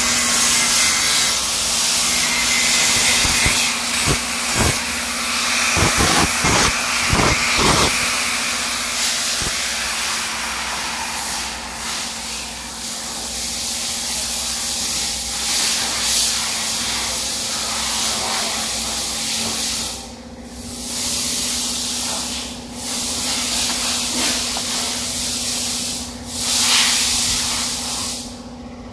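Bodywork on a car's windscreen frame: a steady, loud hiss like a power tool grinding or sanding sheet metal, over a steady hum, with several knocks a few seconds in and short breaks in the hiss near the end.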